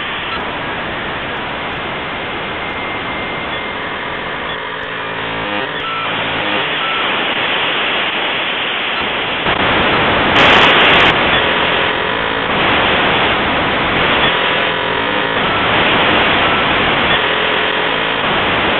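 Dense, loud static-like noise from layered, glitched sound clips, a cacophony with no clear single source. It grows louder around the middle, with its loudest burst a little past halfway.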